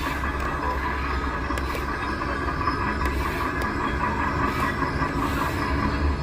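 Steady mechanical running noise from a remote-control model machine's motor and gears, holding an even level.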